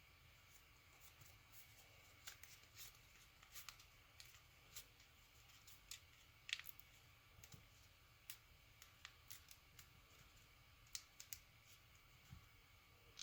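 Sheet of paper being folded and creased: faint, irregular crinkles and crisp crackles, the sharpest about six and a half seconds in.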